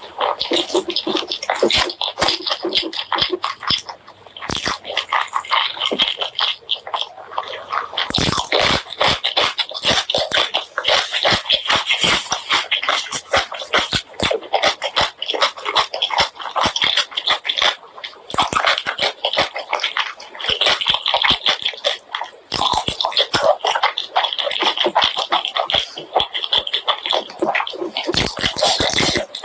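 Close-miked chewing and biting of spicy pork leg curry with rice: a dense, wet run of mouth clicks and crackles, with a couple of brief pauses.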